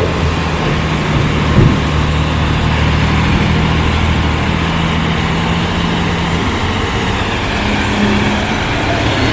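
Heavy truck's diesel engine running steadily at low revs, with one short knock about a second and a half in.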